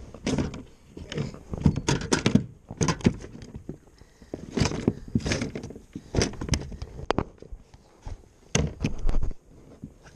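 A loose, just-caught fish flapping against the plastic deck of a kayak: a run of irregular knocks and thumps with short pauses between them.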